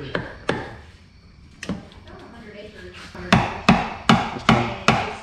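Hammer blows on a tool held against the truck's underside: two separate strikes, then from about three seconds in a steady run of about two or three blows a second.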